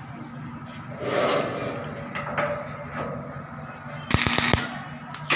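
Arc welder striking a brief crackling arc about four seconds in, tack-welding a steel C-purlin to an I-beam. Before it come faint rubbing and knocks as the steel purlin is set in place, over a steady low hum.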